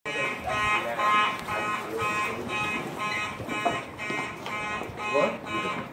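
Simplex 4903-9219 fire alarm horn sounding during a drill, a harsh buzzing blast repeating about twice a second.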